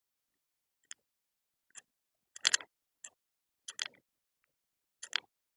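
About six short, sharp clicks and light knocks at irregular intervals, with silence between them. The loudest is a quick double knock about two and a half seconds in.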